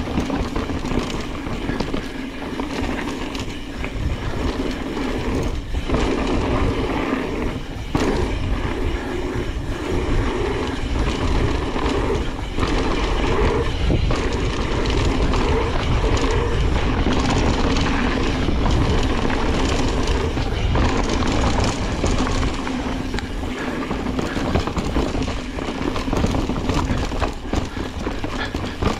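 Mountain bike descending a rough, rocky trail at speed: a continuous rattle and clatter of tyres, chain and frame over rocks and roots.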